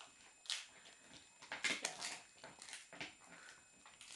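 Greyhound gnawing a dried pig's ear: a handful of faint, irregular crunches and cracks as its teeth work the hard chew.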